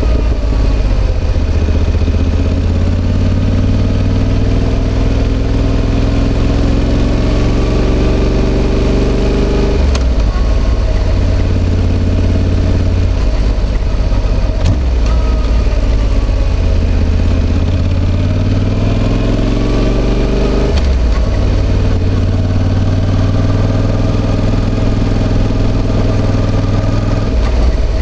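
Yamaha XSR700's CP2 parallel-twin engine through an SP Tadao Power Box Full RS full exhaust under way. The engine note climbs steadily, then drops abruptly at upshifts about ten seconds in, about twenty-one seconds in and again near the end.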